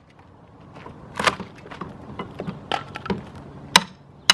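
Glued wood pieces being pried off a metal garage door with a pry bar: wood creaking and splintering as the construction adhesive lets go, with two sharp cracks near the end.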